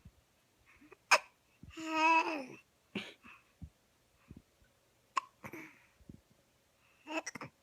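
Young baby hiccupping, about four sharp hiccups roughly two seconds apart, with a short pitched baby vocal sound about two seconds in.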